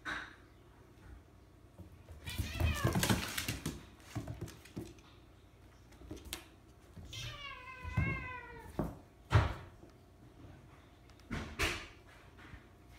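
A cat yowls in one long wavering, slightly falling call about seven seconds in. Earlier comes a rough, noisy outburst lasting over a second. Sharp knocks follow near nine and again near eleven and a half seconds, the loudest near nine.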